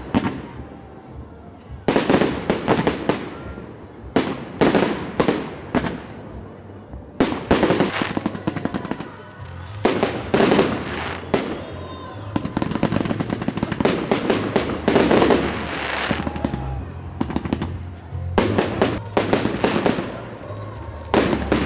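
Fireworks display: aerial shells bursting and crackling in rapid clusters of bangs, with a new cluster every two to three seconds.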